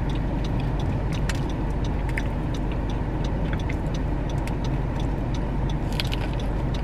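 Steady low hum of a car heard from inside the cabin, with scattered small clicks and ticks over it.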